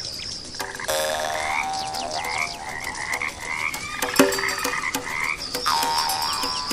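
A chorus of frogs croaking by the water: many short rising calls repeated over and over, over a steady high pulsing trill, with one sharp click about four seconds in.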